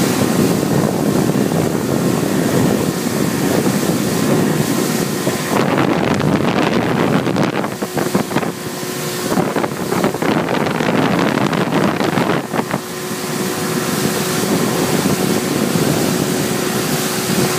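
Boat engine running steadily while underway, with wind buffeting the microphone; the wind is gustier through the middle of the stretch.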